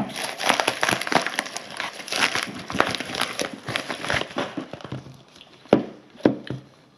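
Plastic-covered padded paper mailer crinkling and tearing as it is pulled open by hand, a dense crackle for about four seconds. Then it goes quieter, and two sharp knocks come near the end as a small cardboard box is put down on a table.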